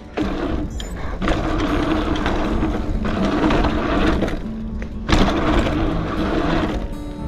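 Gravel bike riding a dirt jump line: tyres rumbling over packed dirt and wind buffeting the action camera's microphone, with two louder jolts, about a second in and about five seconds in.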